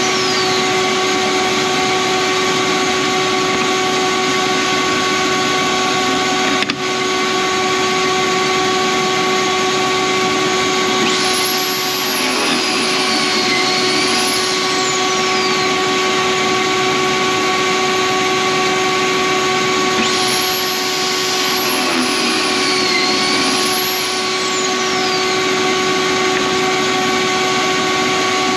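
A vacuum dust collector runs steadily with a constant whine. Twice, the Kreg Foreman pocket-hole machine's drill motor spins up, drills a pocket hole in a board, and winds down.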